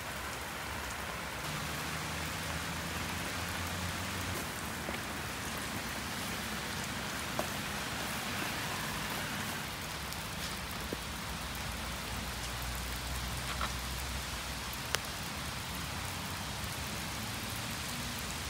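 Steady rain falling, with a few single louder drops ticking here and there.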